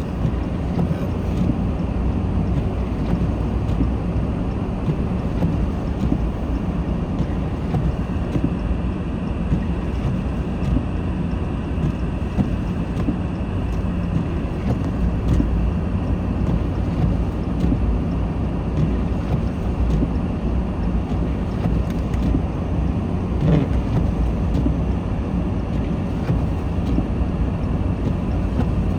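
Car driving steadily on a snowy road: a continuous low rumble of engine and tyre noise heard from inside the cabin.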